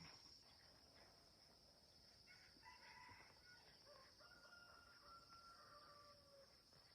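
A rooster crowing faintly, one long drawn-out call.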